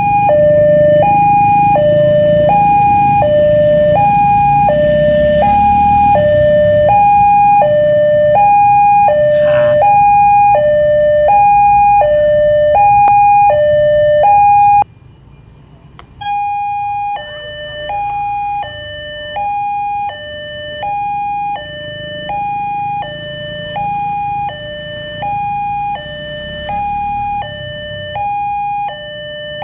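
Railway level-crossing alarm sounding its two-tone electronic warning, a higher and a lower tone alternating about once a second, the signal that a train is approaching. It cuts off for a moment about halfway through, then resumes a little quieter, with a low rumble under the first half.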